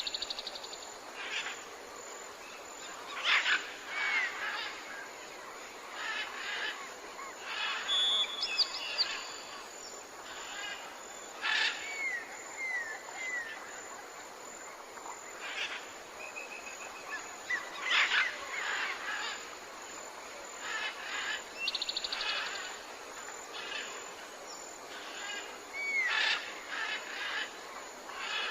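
Jungle ambience: several birds calling in turn, with short curved whistles, brief sharp calls every few seconds and fast rattling trills, over a steady background hiss.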